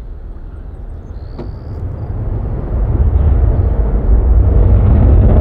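Lockheed Martin F-22 Raptor's twin Pratt & Whitney F119 turbofans in afterburner, heard from the ground as a deep jet rumble that builds steadily louder from about two seconds in as the fighter comes around.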